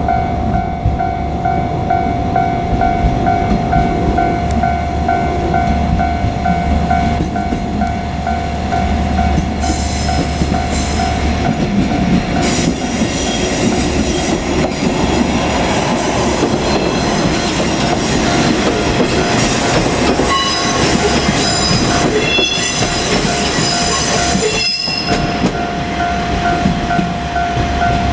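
A Japanese level-crossing alarm rings in a steady repeating pattern while a two-car KiHa 47 diesel railcar set passes. The railcars' diesel engines rumble low at first; from about halfway through, the wheels clatter over the rail joints and squeal with high whining tones, partly drowning out the alarm.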